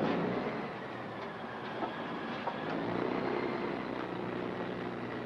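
Shrimp cutter's diesel engine running steadily with a low hum, a few light knocks and clicks over it.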